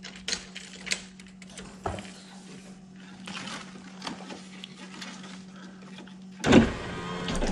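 Light rustling and clicks as a plastic sheet is handled, then about six and a half seconds in the power window motor in a 1999 Ford Mustang SVT Cobra door starts suddenly and runs for about a second, lowering the glass.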